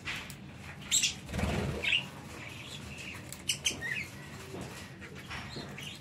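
Budgerigars giving short, sharp chirps at intervals while feeding at a bunch of green leaves, with a brief flutter or rustle about a second and a half in.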